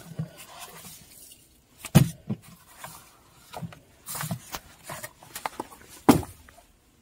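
Paper booklets being handled: a few sharp knocks as they are set down or shifted, about 2 s and 6 s in, with a short paper rustle about 4 s in and light ticks in between.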